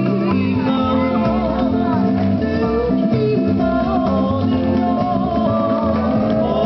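Hawaiian hula music: guitar and singing over a steady, repeating bass line.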